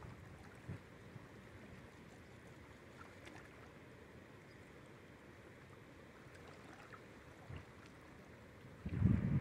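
Shallow river current flowing steadily over riffles, an even rushing hiss. Near the end a louder low rumble breaks in, like wind buffeting the microphone.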